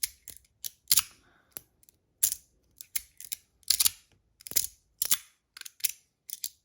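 Magnetic metal fidget slider being worked back and forth, its plates clicking into place: a quick, irregular series of sharp clicks.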